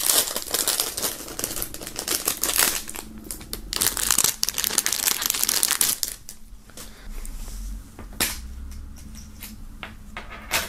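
Thin plastic wrapping crinkling and crackling as a keychain is pulled out of its plastic bag. The crinkling is busiest for about the first six seconds, then thins to a few scattered crackles.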